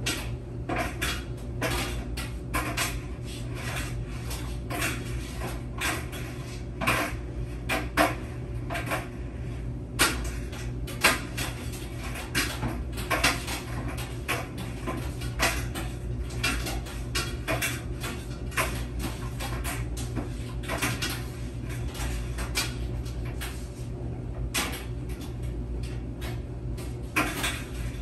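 A laundry machine running: a steady low motor hum under a constant irregular clatter of small clicks and knocks, like hard bits on the laundry striking the drum as it turns, with a few louder knocks.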